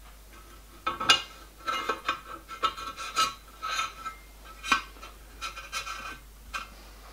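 Small steel gear being fitted and slid onto a shaft inside a metal gearbox housing: a string of metallic clinks and scrapes with a light ringing, starting about a second in.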